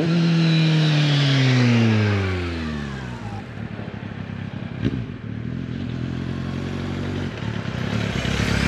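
2006 Kawasaki Z750's inline-four with an aftermarket slip-on exhaust passing by at speed, its engine note falling steadily in pitch as it goes past and dies away. A quieter engine rumble follows with one sharp click near the middle, and engine noise builds again near the end.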